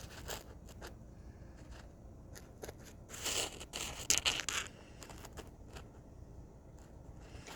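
Scraping and rustling with scattered sharp clicks, loudest about three to four and a half seconds in.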